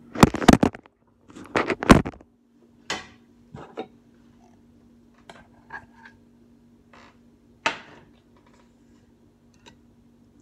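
Handling noise from the recording phone: loud scraping rustles twice in the first two seconds, then scattered fainter rustles and clicks, over a steady low hum.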